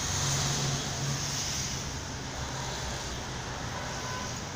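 Street traffic noise: vehicles driving past, with a low engine hum underneath, swelling as one passes close in the first couple of seconds.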